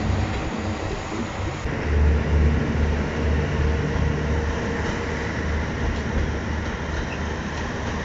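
Kanto Railway KiHa 0-series diesel railcar running along the line, its diesel engine giving a low, throbbing rumble over the noise of the wheels. The sound changes abruptly about two seconds in, and is loudest just after.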